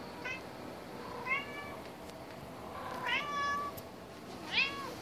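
Calico house cat meowing four times: a short meow at the start, a rising one about a second in, a longer one that rises and then holds around the three-second mark, and a final meow that rises and falls near the end.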